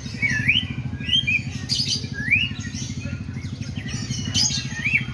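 White-rumped shama singing short whistled phrases in a sooty-headed bulbul (kutilang) style, each note gliding up and down, about one a second, over a steady low hum.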